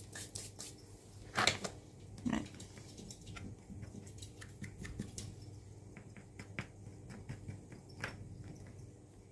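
Soil-like tarantula substrate mixed with damp sphagnum moss being handled and settled into small plastic tubs: soft rustles and scattered light clicks and taps, two of them louder about one and a half and two and a half seconds in.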